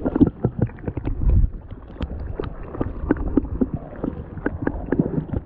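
Boots crunching and scraping on snow-dusted sea ice in quick, irregular steps, with wind buffeting the microphone; the strongest gust comes about a second in.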